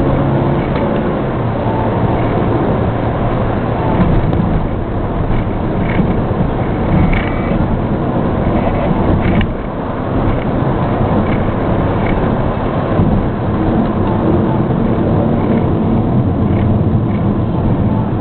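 Honda Fit RS being driven, heard from inside the cabin: steady engine hum and road noise, with the engine note shifting in pitch and a brief drop in level about halfway through.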